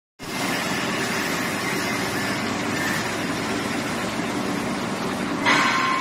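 Steady mechanical hum of factory machinery. Near the end, a sudden louder hissing whine cuts in.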